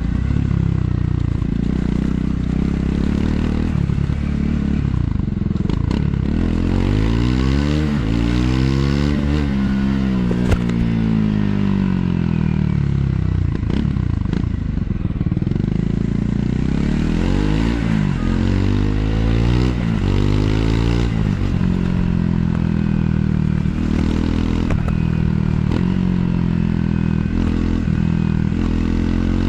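Triumph Scrambler 400 X's single-cylinder engine through its stock exhaust, revs rising and falling several times as the rider works the throttle and gears, over steady wind noise.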